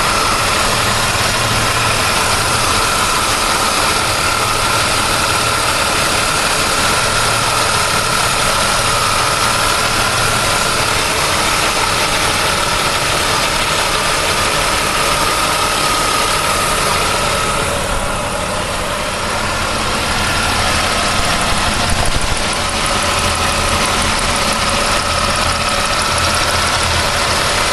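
1999 Pontiac Firebird engine idling steadily, with a constant high-pitched whine over the engine note. The owner takes the noise for something a little loose.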